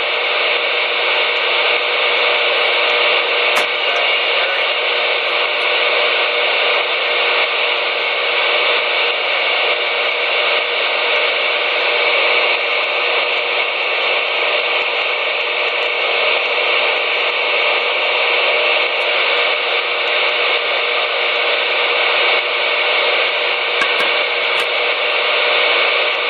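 A CB radio receiver hissing with steady, unbroken static through its small speaker, with a faint steady tone running under the hiss.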